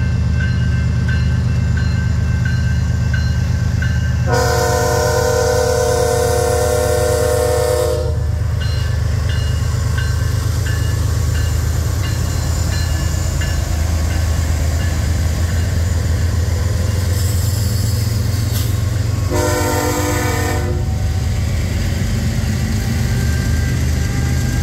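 BNSF diesel freight train passing through a level crossing, its locomotives and cars making a steady low rumble. The locomotive horn sounds a long blast about four seconds in and a shorter one near the end, over the steady dinging of the crossing bell.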